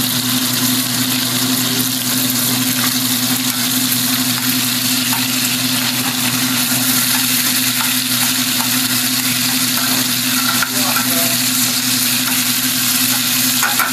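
Veal pieces sizzling steadily in foaming olive oil and butter in a stainless steel sauté pan over a gas flame as they start to brown, turned now and then with metal tongs. A steady low hum runs underneath.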